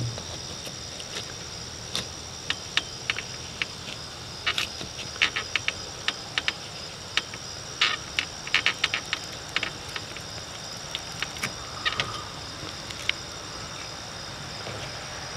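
Short scratching clicks of a plastic-handled razor scraper working old silicone sealant and gasket residue off a camper's roof edge, starting about two seconds in, coming thickest in the middle and thinning out near the end. Behind it, steady high insect chirring.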